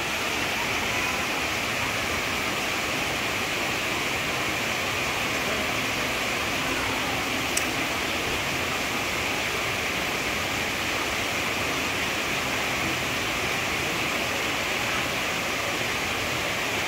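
Water running steadily with an even rush, and one brief sharp click about seven and a half seconds in.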